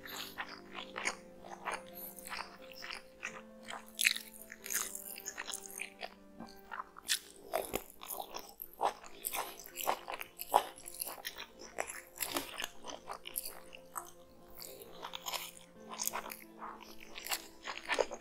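Close-miked chewing and lip-smacking of mouthfuls of green mutton biryani eaten by hand: a dense, irregular run of short wet clicks and smacks. Soft background music with held notes runs underneath.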